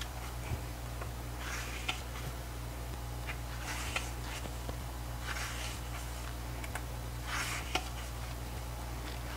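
Pages of a thick paper photobook being turned by hand: a short swish of paper about every one and a half to two seconds, with small clicks, over a steady low hum.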